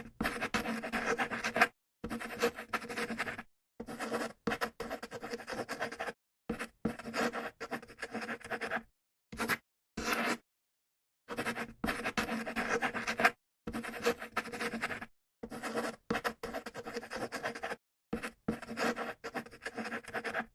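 Writing on paper: scratchy pen or pencil strokes in a string of short edited clips, each broken off by a moment of dead silence.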